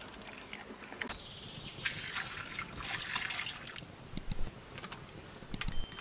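Liquid poured from a small kettle into a cup, a trickling splash lasting about two seconds, with a few light clicks and knocks around it.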